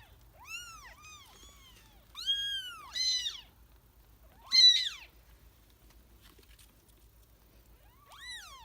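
Two-week-old kittens crying with thin, high meows, about six separate cries, each rising then falling in pitch, the loudest about halfway through. They are calling for their mother, who is away from the litter.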